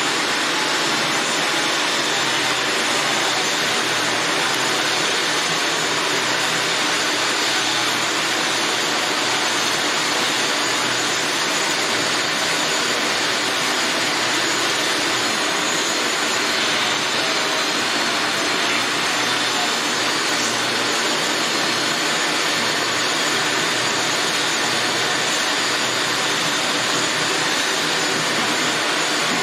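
Steady, loud rushing drone of a machine running, like a vacuum or blower, unchanging throughout.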